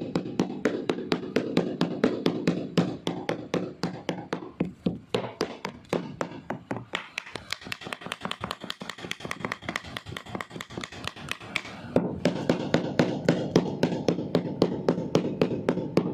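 Rapid, evenly spaced tapping, about four taps a second, over background music.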